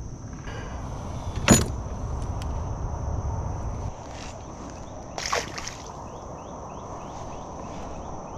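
Handling noise in a kayak: a sharp knock about one and a half seconds in and a softer one a little after five seconds, over a low rumble that stops about four seconds in. A steady, thin high-pitched hum runs underneath.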